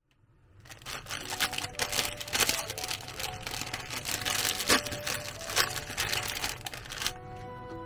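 Plastic wrapper of an instant ramen packet crinkling and tearing as hands pull it open: a dense run of crackles that starts about half a second in and stops near the end.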